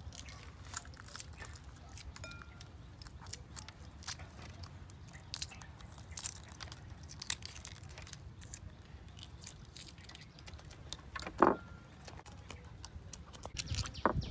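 Boiled duck eggshells being cracked and peeled off by hand: a steady run of small crackles and clicks, with one louder knock about eleven seconds in.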